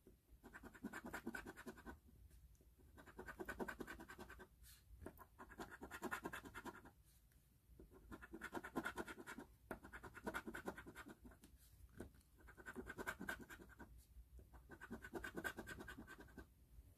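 Scratch-off lottery ticket being scratched: fast rubbing strokes on the ticket's coating, in about seven short bouts with brief pauses between.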